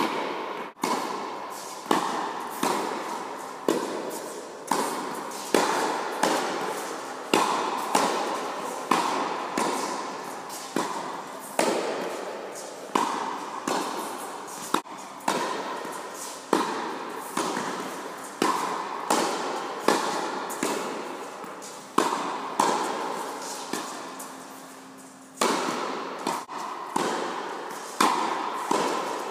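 Tennis balls struck hard by a racket, about once a second, each sharp hit ringing out in the long echo of an indoor tennis hall.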